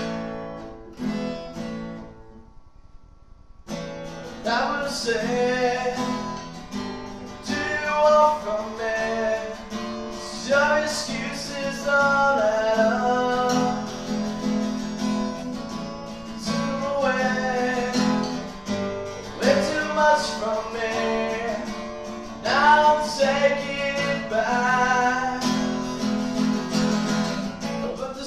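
Song with acoustic guitar, picked and strummed, and a singing voice. The guitar plays alone at first, there is a brief gap near the start, and then the full accompaniment and the singing come in.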